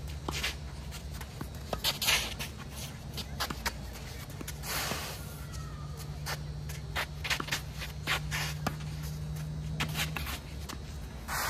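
Tennis rally on a green clay court: sharp racket-on-ball strikes trading back and forth, with shoes scuffing and sliding on the gritty clay between shots. A steady low hum runs underneath and stops near the end.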